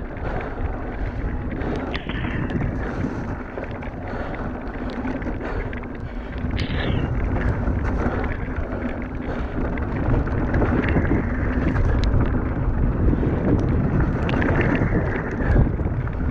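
Wind buffeting a helmet camera's microphone over the rumble of mountain bike tyres rolling on a wet gravel trail, with frequent small rattles and knocks from the bike over bumps and a couple of brief high squeals. Louder from about ten seconds in.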